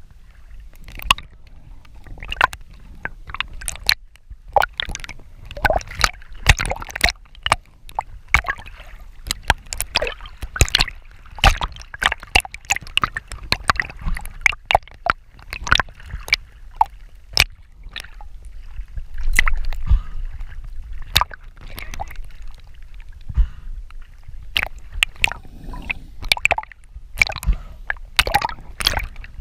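Sea water sloshing and splashing against a camera at the surface as it moves, with many sharp, irregular splats over a low rumble.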